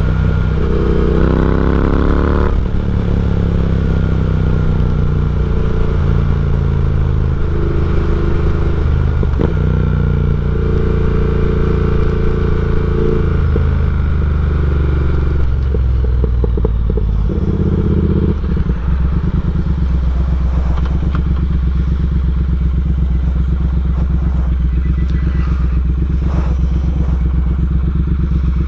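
Triumph Speed Twin's 1200 cc parallel-twin engine, breathing through Nuke slip-on mufflers and a de-catted X-pipe, under way: it rises in pitch in the first couple of seconds, changes pitch through the middle, then settles to a steady low-rpm beat after about eighteen seconds.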